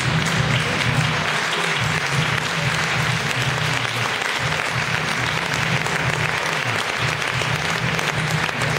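Audience applauding steadily, with background music running underneath.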